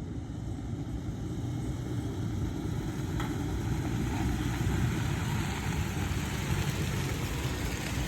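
Big truck's engine running at low revs with a steady low rumble, getting slightly louder over the first few seconds, as the truck crawls along an off-road trail.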